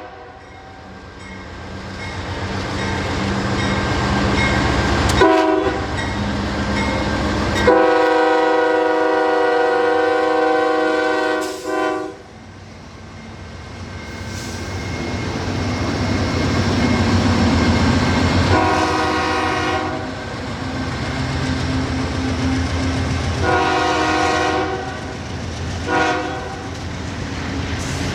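CSX diesel locomotive's multi-chime air horn blowing a mix of long and short blasts, ending in long, long, short, the rhythm of a grade-crossing signal, over the low rumble of the locomotive's diesel engine, which grows louder as the train comes closer.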